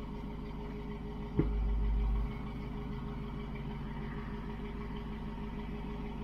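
SUV engine idling with a steady low hum. About a second and a half in comes one sharp knock, followed by a brief louder low rumble.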